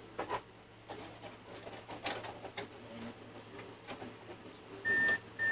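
Faint clicks and rustles of a plastic canopy being handled and held against a model airplane's nose, then near the end two short, loud, steady-pitched electronic beeps about half a second apart.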